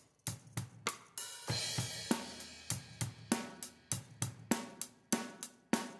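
Recorded drum kit heard through its stereo overhead microphones, hi-hat and cymbals to the fore with kick and snare beneath, keeping a steady beat of about three to four hits a second. It is being compressed by the X32's Ultimo Compressor, an emulation of the Universal Audio 1176.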